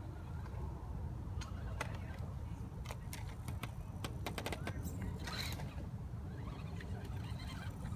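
Axial SCX10 radio-controlled scale crawler working over a log and dry leaves: a run of crackles and snaps in the middle, over a steady low rumble.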